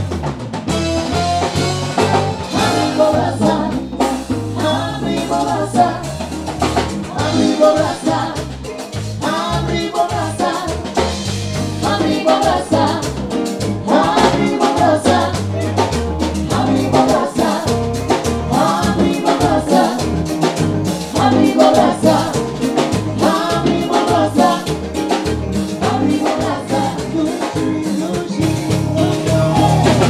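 Live band playing an upbeat song with a woman and a man singing lead, over bass guitar, keyboards and a drum beat.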